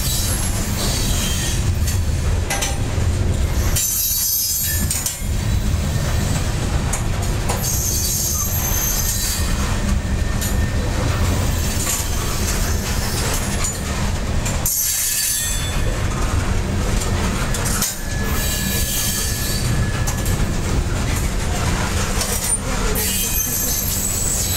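Covered hopper cars of a freight train rolling past on jointed track: a steady low rumble of steel wheels on the rails with a hiss above it, dipping briefly a few times. A faint high wheel squeal holds for a few seconds in the second half.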